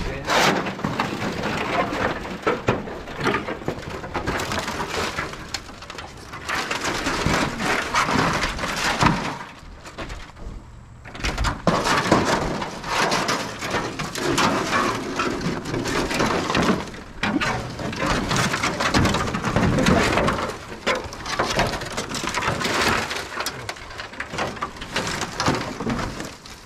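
Rustling and crunching of dry brush and debris, with many small cracks and snaps, pausing briefly about ten seconds in.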